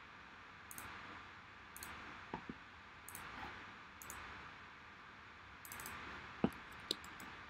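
Faint clicking at a computer over a low steady hiss of room tone: a pair of short, sharp clicks a couple of seconds in and another pair near the end.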